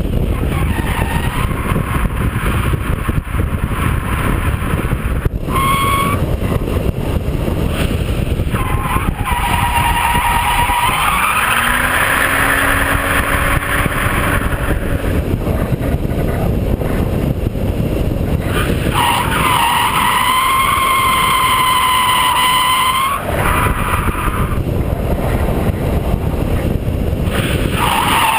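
BMW E36 328i drifting: its straight-six engine runs hard under a steady rumble, revving up about a third of the way in, while the tyres squeal in several long wavering stretches, the longest about two-thirds of the way in.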